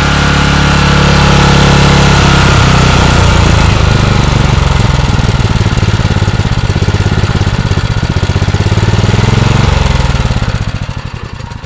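Generac 4000 W portable generator engine running steadily under its governor, then shut off about ten seconds in, its firing slowing as it coasts to a stop.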